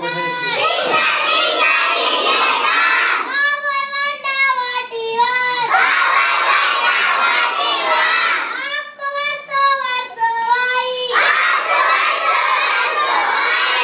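A class of children singing together in loud, half-shouted unison, in phrases of about three seconds with long held notes.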